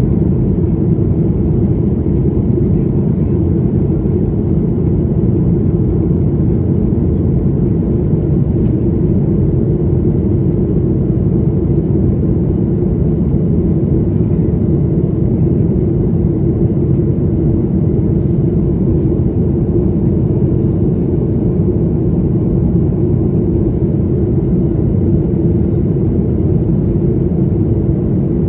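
Steady deep roar heard inside the cabin of a Boeing 737-800 in flight after takeoff: its CFM56-7B turbofan engines and the rush of air over the fuselage, unchanging throughout.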